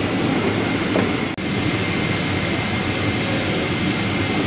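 Steady rushing ventilation noise inside a parked Boeing 777-300ER cabin, with a faint thin high whine running through it. It cuts out for an instant about a second and a half in.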